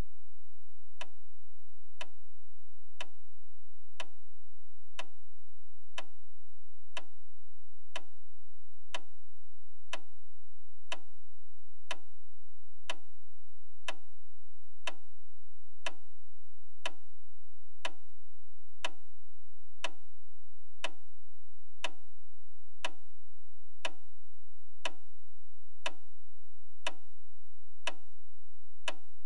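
Clock ticking evenly once a second, sharp single ticks over a low steady hum, played as a timekeeping sound effect.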